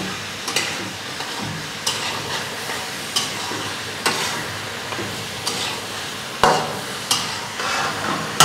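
A metal spatula scrapes and knocks against a heavy iron karahi as boneless beef pieces are stirred over high heat, with strokes roughly every second. Under the strokes is the steady sizzle of the meat frying in hot oil. The hardest knock comes about six and a half seconds in.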